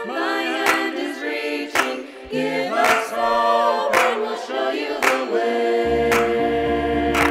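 Mixed choir singing a cappella in chords, with a hand clap about once a second. Deeper sustained notes join near the end.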